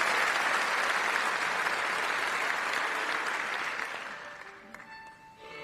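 Audience applauding, fading out about four seconds in; a few instrument notes sound near the end.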